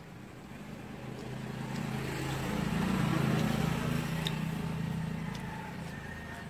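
A motor vehicle driving past: its engine hum grows louder, peaks about halfway through, and fades away.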